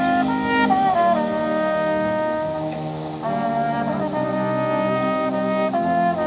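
High school marching band brass section playing slow held chords, with the upper brass and low brass shifting to new notes every second or two.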